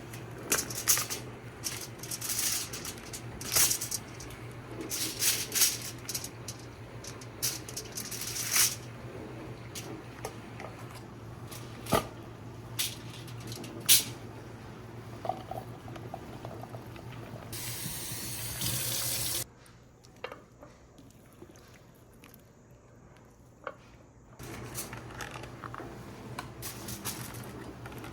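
Kitchen tap running into the sink as green chillies and curry leaves are rinsed, with splashes and sharp clicks of handling. The water stops for several seconds about two-thirds of the way through, then starts again.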